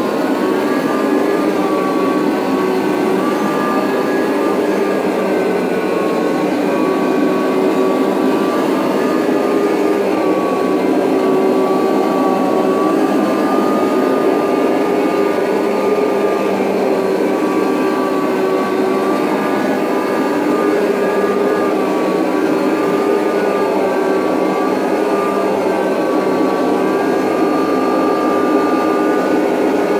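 Late-1980s Kirby Heritage 2 upright vacuum running with its Rug Renovator carpet-shampooing attachment: a loud, steady motor whine whose pitch wavers slightly as it works over the carpet.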